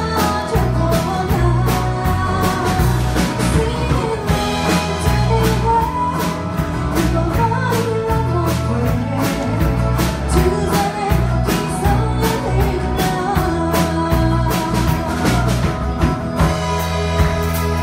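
Live band playing a song: a woman singing over drum kit, acoustic guitar and electric guitar, with a steady drum beat. Her voice drops out near the end, leaving the band playing.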